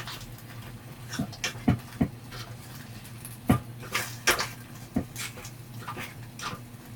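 Irregular light taps and knocks, about a dozen scattered short clicks, some with a dull low thud, over a steady low hum.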